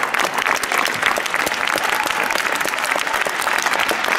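A crowd of ice hockey fans clapping their hands: dense, steady applause.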